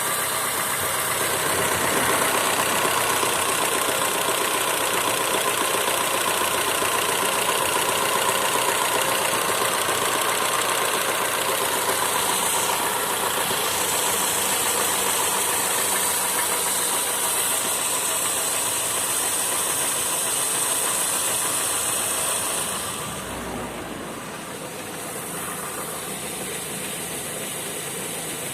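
Honda Civic sedan engine running steadily with a knock, the fault being recorded; the sound drops somewhat in level about 23 seconds in.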